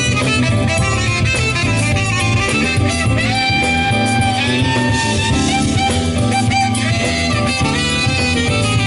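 Live jazz band: a saxophone plays the lead melody in held, sliding notes over electric guitar, bass and drum kit.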